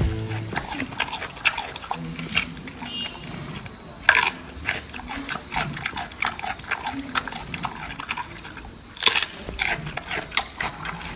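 Giant panda chewing bamboo: irregular crunching and munching, with two louder crunches about four seconds in and about nine seconds in.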